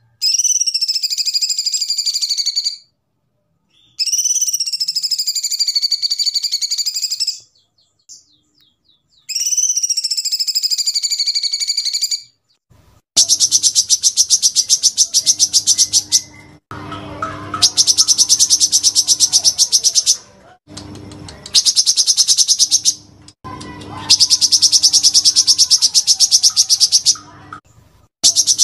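Recorded song of kapas tembak and cucak cungkok bulbuls. Three long, warbling whistled phrases come first. Then, about halfway through, come long runs of very fast, rattling high trills broken by short pauses.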